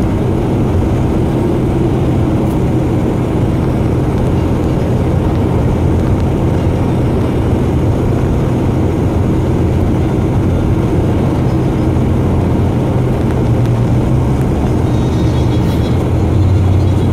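Steady road and tyre noise with a low engine hum, heard inside a car cruising at highway speed.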